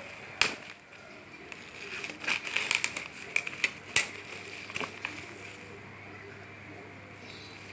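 Parcel packaging being handled, crinkling and rustling, with sharp clicks about half a second and four seconds in.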